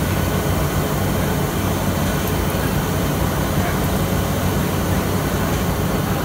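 Rotary screen-printing machine running, a steady, even low hum with no breaks.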